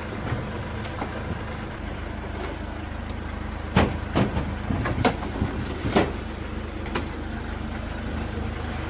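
Vehicle engine idling steadily, with a handful of sharp knocks and clacks between about four and seven seconds in.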